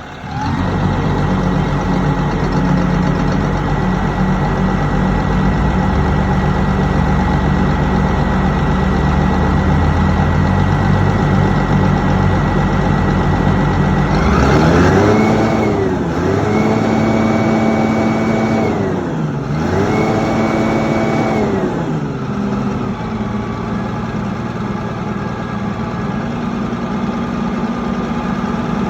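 Mitsubishi 6M60 inline-six diesel engine idling, then revved three times, the first brief and the next two held for about two seconds each, before dropping back to idle. The engine is misfiring and shaking.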